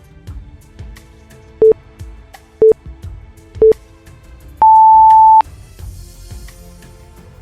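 Interval timer countdown beeps: three short beeps about a second apart, then one longer, higher-pitched beep that marks the end of the interval. Background music with a beat plays underneath.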